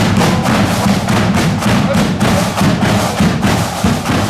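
Marching band drums: bass drum and side drums beating a steady march rhythm, loud and close, with no clear melody over them.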